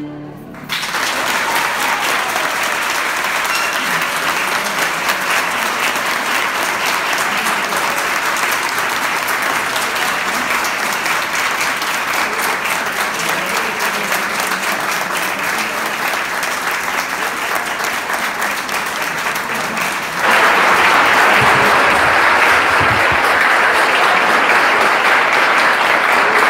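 Audience applauding, starting about half a second in; the clapping turns suddenly louder about two-thirds of the way through.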